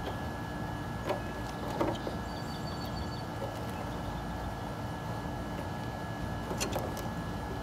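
Steady mechanical background drone carrying a few thin, unchanging whining tones. Over it come a few light clicks from handling a clear plastic RC car body: about a second in, near two seconds, and near the end.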